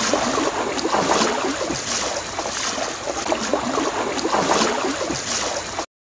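Rushing water noise like surf, swelling and easing in regular pulses, that stops suddenly near the end.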